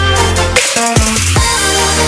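Electronic music with heavy, deep bass notes and sharp drum hits.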